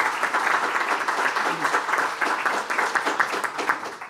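Audience applauding, many hands clapping together; the clapping thins out and stops about four seconds in.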